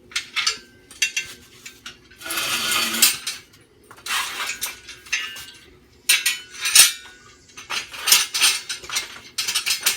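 Metal parts of a lawnmower lift clanking, clinking and scraping as they are taken off, turned over and set back in place, with a few longer scrapes of about a second each among the sharp clinks.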